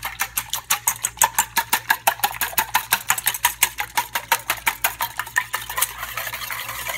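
Wire whisk beating egg and milk in a small stainless steel saucepan, its wires ticking against the metal sides in rapid, even strokes, several a second.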